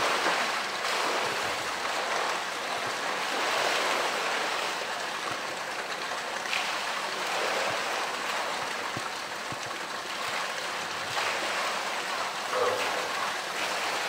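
Pool water splashing and sloshing as a polar bear swims and wrestles a floating blue plastic tank.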